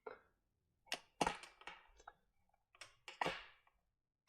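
A wrench working the chain-adjuster lock bolt on a Kawasaki ZX6R swingarm as it is broken loose: a few sharp clicks and clacks in irregular clusters.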